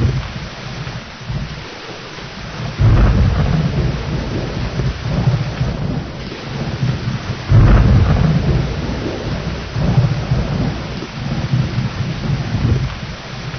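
Steady rain with thunder. Two thunder rumbles break in suddenly, about three seconds in and again a little past the middle, each fading out over a few seconds.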